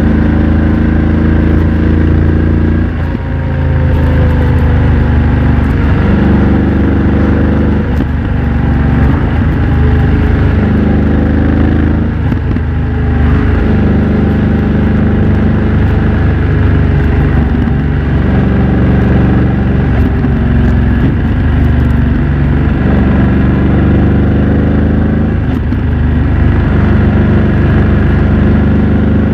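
BMW F900 XR's parallel-twin engine running under way through a MIVV X-M1 aftermarket exhaust, its pitch stepping up and down with several gear changes every few seconds.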